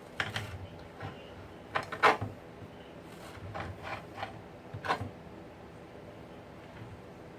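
Sharp knocks and clicks of kitchen items being handled and set down, in short clusters about two seconds in and again around four to five seconds.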